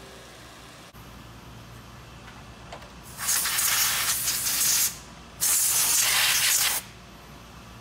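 Compressed-air blow gun blasting a stack of steel connecting rods: two hissing blasts of about a second and a half to two seconds each, a short pause between them.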